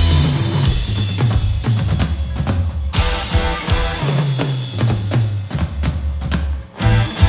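Rock band playing an instrumental passage of a song: drum kit and bass guitar to the fore, with no singing. The band drops out briefly near the end, then the drums hit back in.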